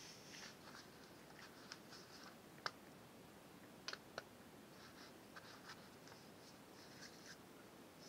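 Faint handling noise of mobile phones being picked up and moved on a carpet: soft scratching and rustling with a few sharp plastic clicks, the loudest about two and a half seconds in and two close together about a second later.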